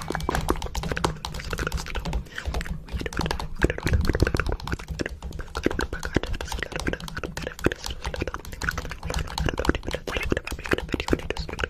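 Rapid, irregular clicking and tapping, many clicks a second, over a low steady hum.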